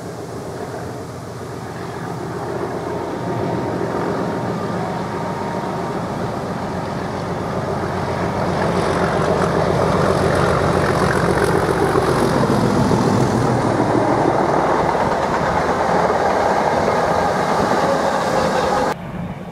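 Class 37 diesel locomotive's English Electric V12 engine running as it approaches and passes, growing louder, then the wheels of the two towed, unpowered Class 319 electric units rolling by. The sound cuts off suddenly near the end.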